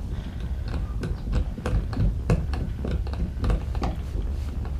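Small irregular clicks and taps of a screw and nylon pad eye being handled and fitted by hand against a plastic kayak hull, over a steady low rumble.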